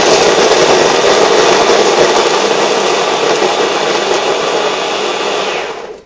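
Immersion blender with a chopper bowl attachment running, grinding cookies into crumbs: a steady motor and grinding noise that starts suddenly and runs down just before the end.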